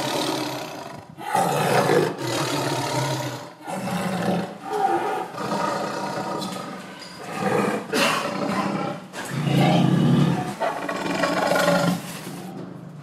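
Tiger roaring in a series of loud, rough roars, each a second or two long, repeated one after another.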